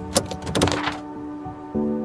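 Music with held chords that change near the end, with a quick run of sharp clicks and knocks in the first second.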